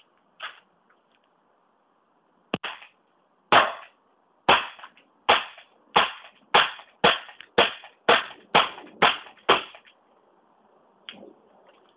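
Gas-powered SIG Arms GSR airsoft pistol fired about eleven times in steady succession, sharp cracks coming a little faster toward the end, after a couple of soft handling clicks.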